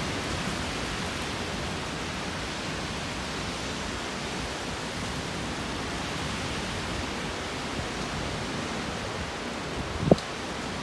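Steady thunderstorm rain, an even hiss, with one short thump about ten seconds in.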